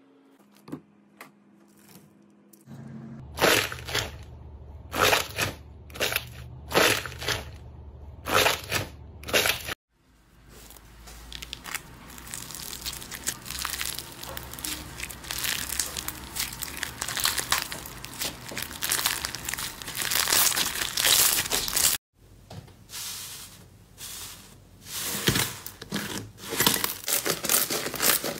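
Slime being handled at close range. First come about eight separate sticky squelches as yellow slime is pressed through a wire rack. Then there is a dense crackling as bead-studded foam slime is stretched, and near the end comes a squishing crackle of pink slime kneaded by hand.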